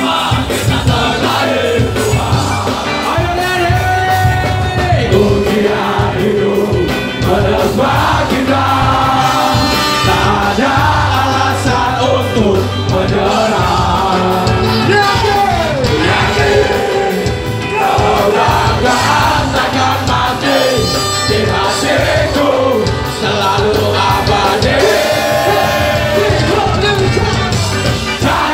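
Live ska band playing loudly, with electric guitars and drums under a sung melody, and a crowd singing and shouting along.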